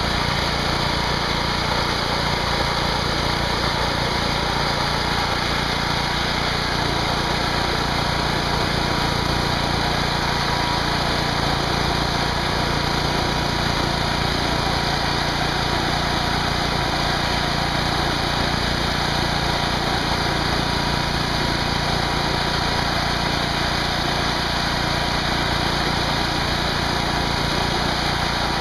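Pressure washer running steadily, its high-pressure water jet hissing into the spinning disks of a 24-inch boundary-layer Tesla turbine while a propane torch turns some of the spray to steam. The noise stays level throughout, with no rise or fall.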